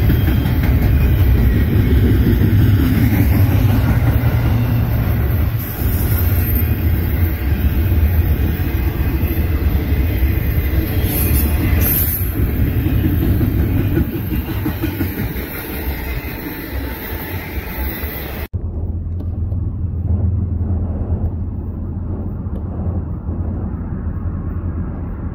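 Double-stack container freight train rolling past: a loud, steady rumble of cars on the rails. About three-quarters of the way through the sound cuts abruptly, and a duller, lower rumble goes on.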